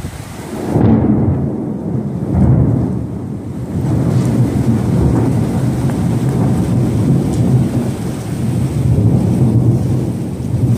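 Heavy tropical rainstorm: a loud, low rumble swells about a second in and keeps rolling, over the hiss of rain.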